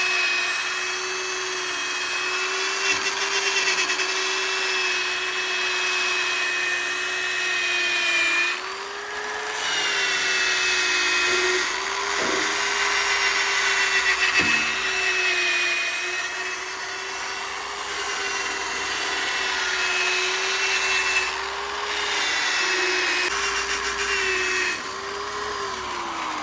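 Handheld electric rotary polisher whining steadily as its buffing pad works rubbing compound into a tractor's painted body panel. The motor's pitch shifts a few times as pressure on the pad changes, then winds down as it is switched off near the end.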